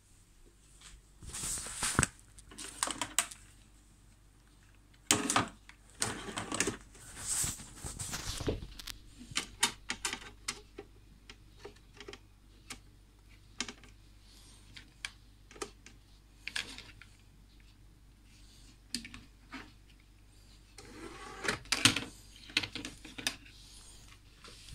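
Handling clicks and rustles as a DVD disc is carried and set into the open disc tray of a DVD player: irregular clusters of clicks and rubbing noise with scattered single ticks between them.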